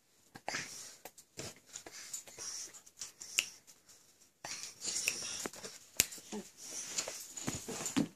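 Golden doodle puppy mouthing and licking a person's face and hand up close: irregular small clicks and soft hissy rustles.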